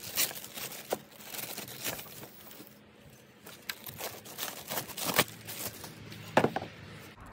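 Clear plastic wrap crinkling and crackling in irregular bursts as it is pulled off a metal DVR box, with a few sharper crackles, the loudest about six seconds in.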